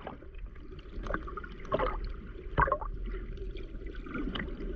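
Seawater lapping and sloshing against shore rocks, with a few short louder splashes over a steady rushing background.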